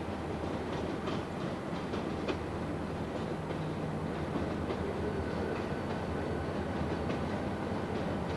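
CP Rail diesel freight locomotives running, their engines giving a steady rumble, with irregular clicks of wheels over rail joints in the first couple of seconds.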